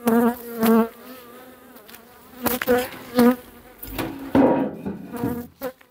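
Honeybees flying close past the microphone, buzzing in several passes that come and go. A few sharp knocks are heard partway through.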